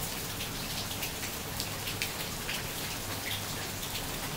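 Steady rain falling, with scattered drops ticking on nearby surfaces.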